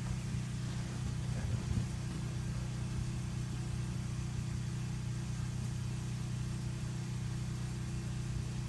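A motor or engine running steadily, a constant low hum.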